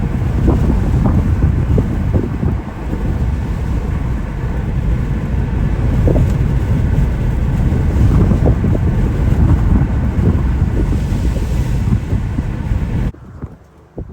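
Strong wind buffeting the microphone, a loud, rough low rumble that cuts off abruptly about a second before the end.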